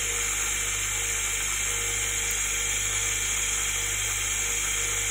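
Steady high-pitched hiss over a low hum, unchanging throughout, with no distinct snips or clicks standing out.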